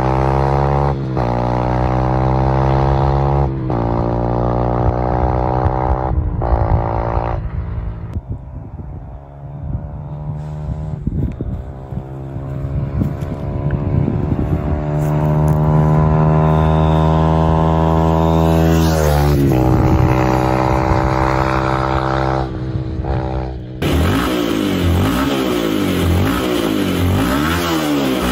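Beta RR 125 LC motorcycle engine with an aftermarket sport exhaust, accelerating hard. The pitch climbs and drops back at each gear change, then comes one long pull and a fall-off. In the last few seconds the engine is blipped up and down rapidly, over and over.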